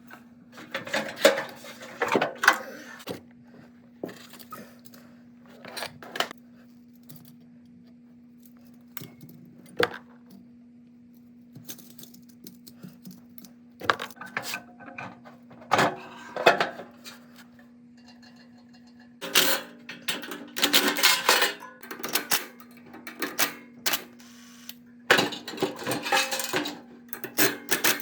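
Bursts of metallic clinking and rattling from tools and metal parts being handled, in several clusters with single clicks between, over a steady low hum.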